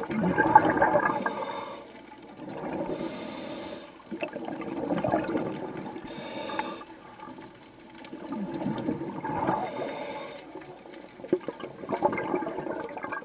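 Scuba diver breathing underwater through a regulator: four short hissing inhalations about three seconds apart, with gurgling exhaled bubbles in between.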